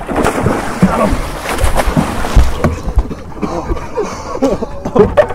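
A big muskie thrashing at the surface as it is netted beside the boat, with splashing water heavy over the first three seconds and excited shouting over it.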